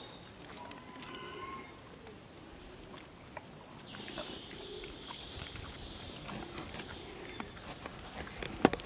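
Soft clicks and scuffs from a mini pig nosing and licking at gravel ground, with a few short bird chirps. A sharp knock near the end is the loudest sound.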